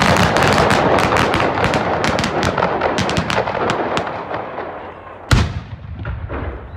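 Dense, rapid crackling pops that die away over about four seconds, then a single heavy boom from a ceremonial field gun about five seconds in.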